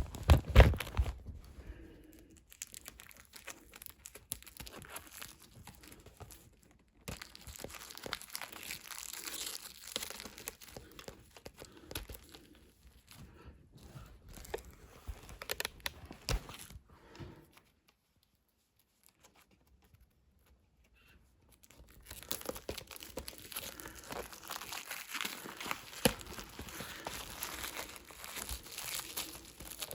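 Packaging being torn open and crinkled by hand while a VHS tape is unwrapped, with a few handling knocks about the start. The crinkling stops for a few seconds of near quiet midway, then resumes.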